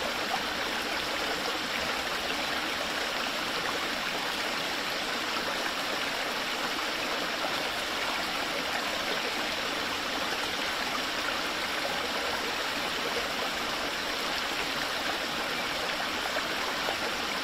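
Running water, a steady rush with no breaks.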